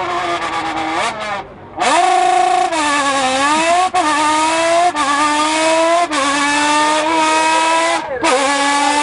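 A man imitating a rally car's engine with his voice through a tin can: rising revs, each run broken off about once a second like a gear change.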